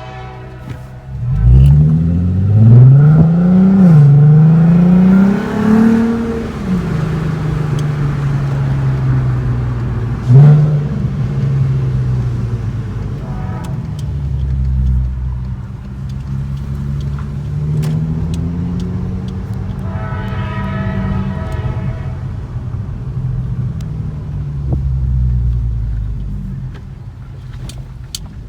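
Volkswagen Golf R32's 3.2-litre VR6 engine revving hard as the car pulls away about a second in, rising and falling through the gears for a few seconds. A short sharp rev blip comes about ten seconds in, and the engine then runs steadily at lower revs while the car cruises.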